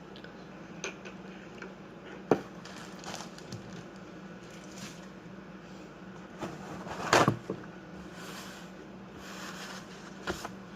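Scattered knocks and clicks of things being handled, like cupboards, mugs or the coffee machine, over a steady low hum. The sharpest knock comes about two seconds in and the loudest clatter about seven seconds in.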